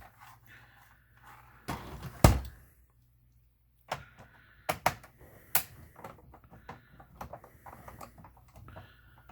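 Irregular plastic clicks and knocks from the Commodore 64C's case being handled and opened. There are a few sharp knocks and many lighter ticks, broken by a second of dead silence about three seconds in.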